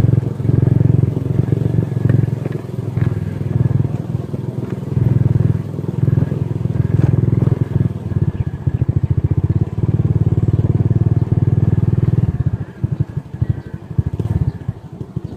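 Motorcycle engine running as the bike rides slowly across a rough dirt lot. It drops quieter and uneven about three-quarters of the way through.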